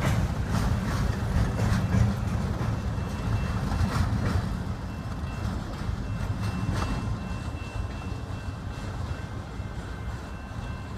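Freight train cars rolling past: a low rumble with wheels clicking over the rail joints, fading away over the second half as the end of the train passes and moves off.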